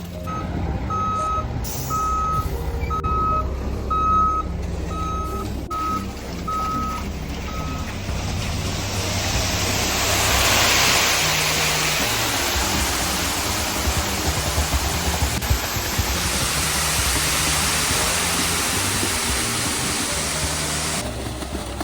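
Truck reversing alarm beeping about eight times in steady rhythm over a low diesel engine rumble, then a broad rushing noise swells up about a third of the way in and runs on.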